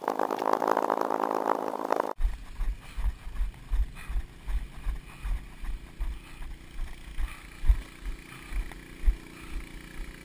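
Running footfalls heard as irregular low thumps, about two or three a second, with wind rumble on a body-worn GoPro action camera's microphone. A dense, muffled rushing noise fills the first two seconds and cuts off abruptly.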